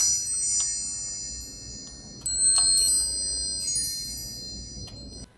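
Bright, high chimes ringing out in clusters: struck at the start, again louder about two seconds in and more softly near four seconds, each ringing on and fading, over a faint low drone. The sound cuts off abruptly just before the end.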